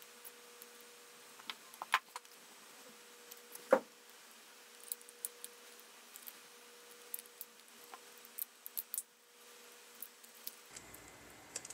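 Small plastic clicks and taps of a white plastic power bank case being handled and closed up, with one louder knock a little under four seconds in and a quick run of small ticks later on.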